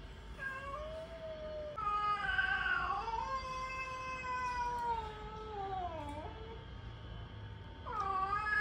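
Cats yowling in a territorial standoff: long, drawn-out wavering howls. The longest lasts about four seconds and drops in pitch at its end, and another rising howl starts near the end.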